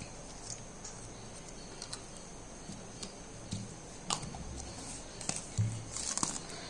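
Faint, scattered taps, clicks and light rustling of craft supplies being handled and set down on a newspaper-covered tabletop. A few sharper clicks come in the last few seconds.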